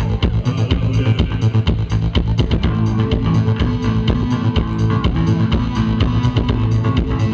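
Live band performance of a dark post-punk/electronic rock song, with bass and guitar over a steady, driving drum beat.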